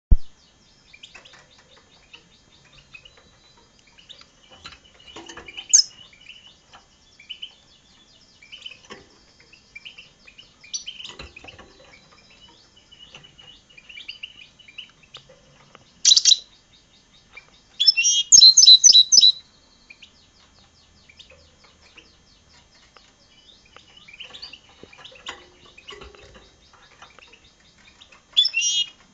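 Goldfinch × red siskin hybrid singing: soft, scattered twittering throughout, broken by a few loud bursts of rapid high chirps, one just past halfway, a longer run of them a couple of seconds later, and another near the end.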